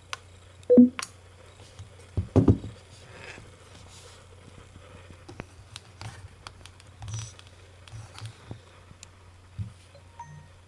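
Nokia Play 360 Bluetooth speaker sounding a short falling two-note tone about a second in, just after its button is pressed. Then a dull knock from handling, scattered small clicks and taps, and a faint brief beep near the end.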